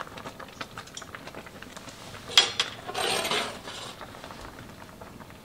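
Kitchen handling noises: small clicks and clinks of utensils and cookware, with one sharper click about two and a half seconds in and a brief clatter just after it.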